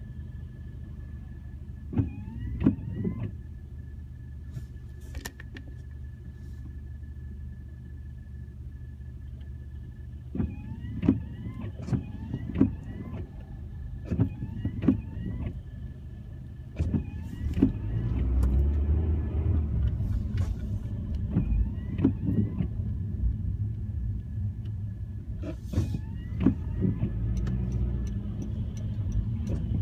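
Car driving on a wet road, heard from inside: a steady low engine and tyre rumble that grows louder after about 18 seconds. Over it come several clusters of short squeaky strokes, each about half a second apart.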